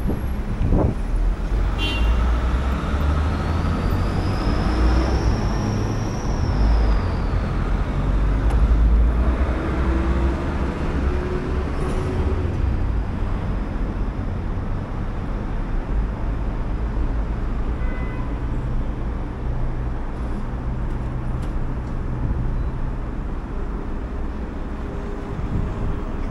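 City street traffic at a busy intersection: a steady rumble of passing cars and trucks. A high whine rises and falls a few seconds in.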